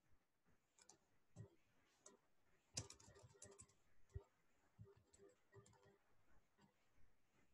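Faint computer keyboard typing: scattered single keystroke clicks, with a quick run of several keystrokes about three seconds in.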